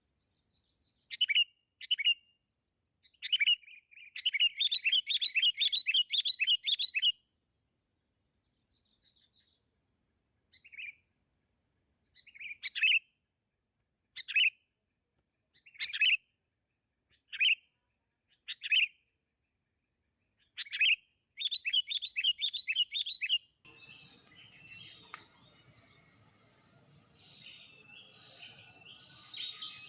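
Bird chirping: single sharp calls every second or two, with two runs of rapid chattering. Near the end it cuts suddenly to a steady background hiss.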